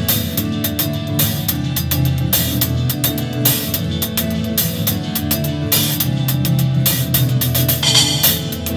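Band music with drum kit and guitar playing, a steady beat of drum hits.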